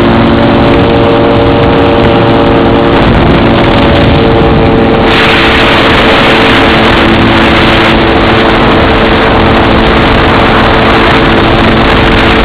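The Tanarg 912 trike's Rotax 912 four-cylinder engine running steadily at cruise power, under a heavy rush of wind over the microphone that grows louder about five seconds in.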